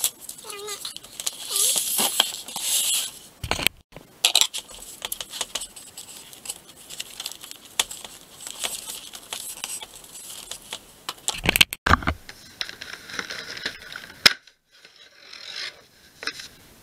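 Packaging being handled and torn open to free a doll from its box: rustling, crinkling and tearing, with many sharp clicks and scrapes.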